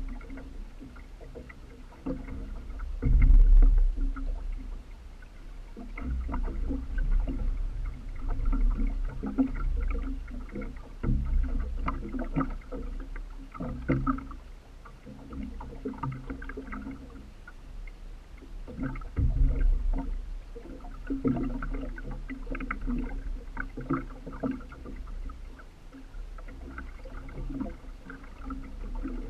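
Water sloshing and splashing against a small boat's hull. It comes in uneven waves of sound, with heavier low thumps a few seconds in and again near the middle.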